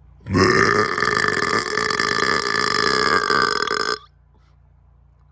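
A man's long, loud burp lasting nearly four seconds. It holds a steady pitch and cuts off suddenly.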